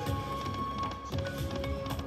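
Lightning Cash Tiki Fire video slot machine playing its free-games bonus music as the reels spin, with held electronic tones over quick clicks. The held tone drops lower about halfway through.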